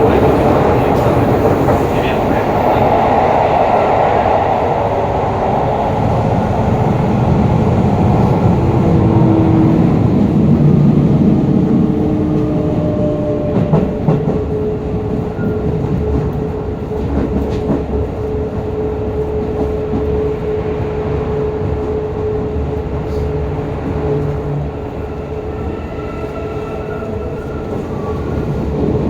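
Onboard running sound of a Hokuso 7300-series commuter train: wheel and rail rumble with the steady hum of its GTO-VVVF inverter-driven traction motors, holding one pitch through the middle, and a few clicks from the track.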